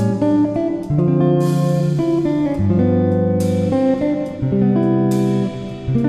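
Instrumental background music led by plucked guitar notes over a bass line.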